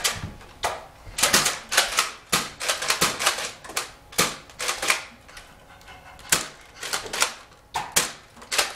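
Spring-powered Nerf blasters being primed and fired: an irregular run of sharp plastic clacks and snaps, about two or three a second, with a short lull just past the middle.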